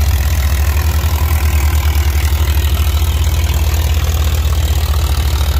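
Engine running at a steady speed close to the microphone, a low, even, rapid throb with no change in speed.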